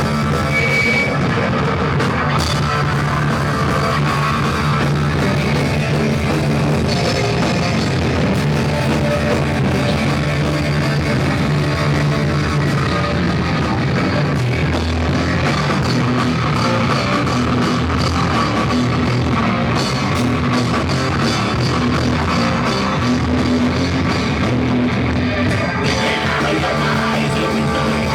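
Rock band playing live, loud and distorted: electric guitars, bass and drum kit in a steady instrumental passage.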